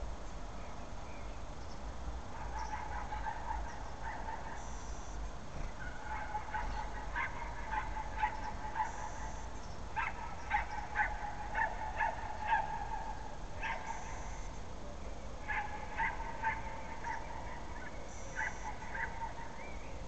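A run of short animal calls, coming quickest and loudest around the middle, over a low steady hum.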